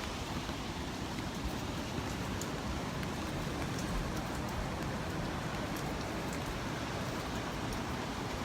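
Steady rain falling, with scattered faint ticks of drops striking close by.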